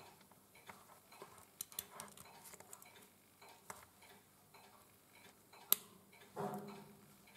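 Faint small metallic clicks and taps of a stainless steel watch bracelet's end link and spring bar being worked into the lugs of a watch case by hand, with one sharper click about six seconds in.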